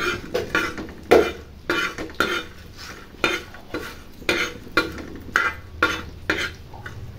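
Steel spoon scraping and stirring whole spices on an iron griddle (tawa) as they are dry-roasted, in quick regular strokes about two a second.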